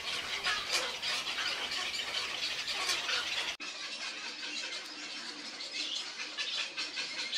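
A nesting colony of cattle egrets calling all at once: a dense, busy chorus of harsh squawks and croaks from many birds. The sound drops out for an instant a little over halfway through, then the same calling carries on.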